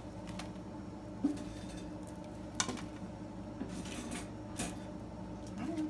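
Kitchenware being handled: about five light clinks and taps of dishes or a metal tray, spread a second or so apart, over a steady low hum.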